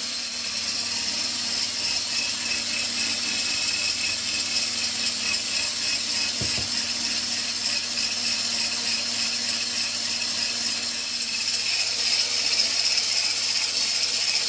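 Electric hand blender with a whisk attachment running steadily, whipping egg whites and sugar in a glass bowl into meringue.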